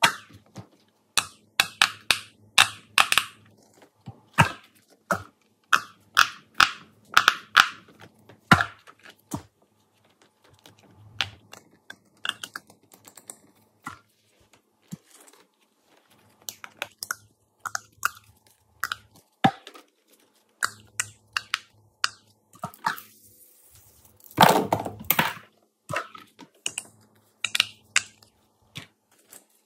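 Silicone pop-it fidget toys and small plastic fidget spinners being handled, stacked and set down on a table: irregular clicks, taps and soft knocks in quick runs. Near the end comes a longer, louder rustle of about a second and a half.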